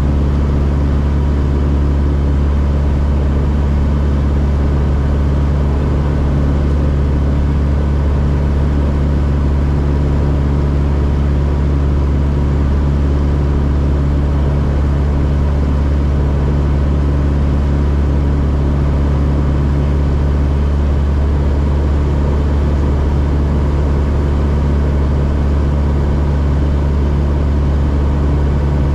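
Socata TB9 Tampico's four-cylinder Lycoming engine and propeller running steadily, heard inside the cockpit, with an even drone whose pitch holds constant.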